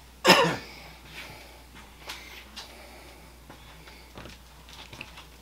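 A short vocal exclamation falling in pitch about a quarter second in. It is followed by a few faint, scattered knocks as model pieces are handled and set down on a wooden counter.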